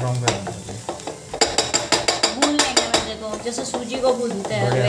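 Wooden spatula stirring and scraping clumpy flour cooked in butter (a roux for white sauce) around a stainless steel pan, with a quick run of scraping clicks in the middle, over a light sizzle.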